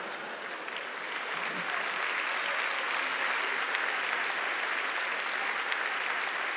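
Studio audience applauding, building over the first couple of seconds and then holding steady.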